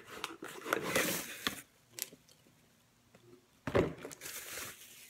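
Packaging being handled and unwrapped: crinkling and rustling in irregular bursts, with one sharp knock a little past the middle.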